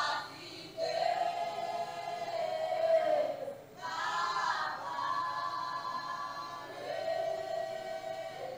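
Voices singing together unaccompanied in long held notes, a slow chant or song in phrases of two to three seconds each.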